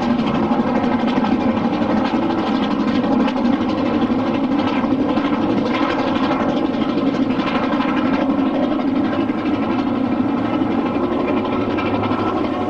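LMS Black 5 No. 44767, a two-cylinder 4-6-0 steam locomotive, running on the main line: a continuous mechanical clatter of the engine and train on the rails. A steady tone joins near the end.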